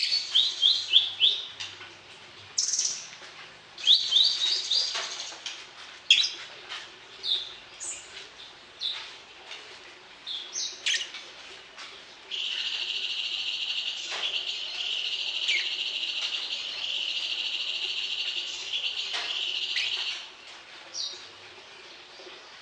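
A small songbird calling in quick series of short, high, rising chirps, then breaking into one long continuous trill lasting about eight seconds, starting about twelve seconds in.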